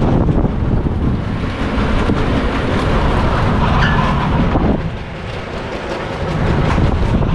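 Sunkid Butterfly shuttle coaster car rolling along its steel track: a loud wheel rumble and rattle with a brief whine a few seconds in. It eases off for a moment as the car slows near the top of a tower, then builds again as the car rolls back down.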